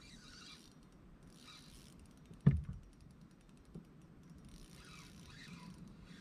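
Faint clicking of a fishing reel being wound during a retrieve, with one sharp, loud thump about two and a half seconds in and a smaller tick a second later.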